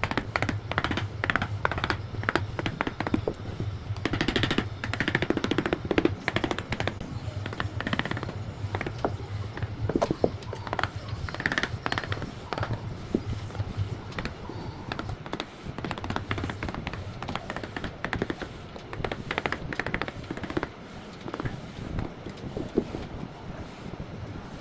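Hand tools working wood: a dense run of irregular sharp taps and scrapes, over a steady low hum.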